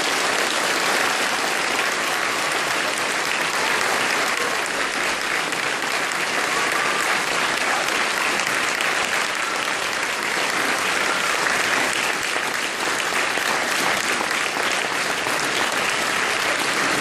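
Church congregation applauding steadily after a baptism.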